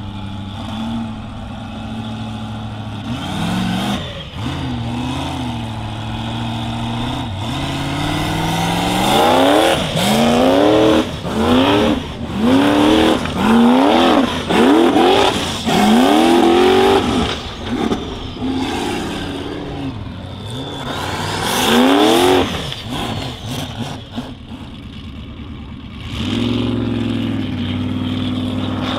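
Formula offroad race car engine, running steadily at first, then revved hard again and again in quick rises and falls about once a second, with one more big rev a few seconds later. Near the end the revving drops away and an engine runs steadily again.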